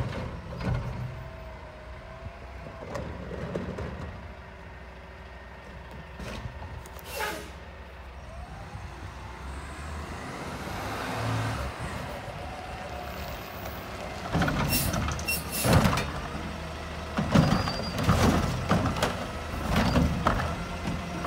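Mack LR garbage truck approaching and pulling up, its diesel engine running, with air-brake hisses. Over the last several seconds it becomes louder, with a run of metallic clanks and knocks.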